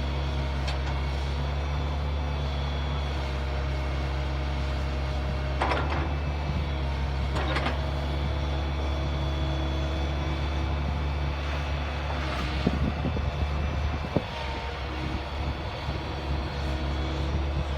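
Excavator engine running with a steady hum, with a few sharp knocks about six and seven and a half seconds in and a cluster of knocks past the middle.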